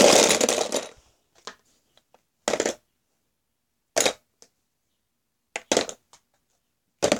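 Handling noise: rustling and rubbing close to the phone's microphone, one long scrape right at the start, then short rustles every second or so.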